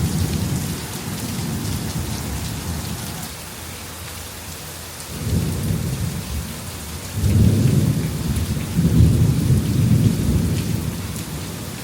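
Rain falling steadily through a thunderstorm, with thunder rolling in several waves; the longest and loudest roll starts about seven seconds in.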